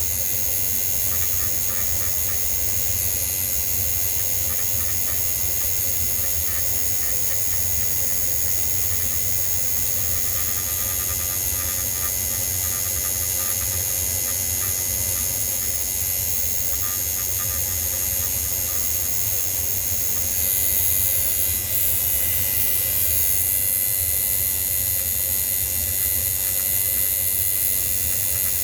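A small motor running steadily, with a high-pitched whine and hiss over a low hum, getting slightly louder about twenty seconds in.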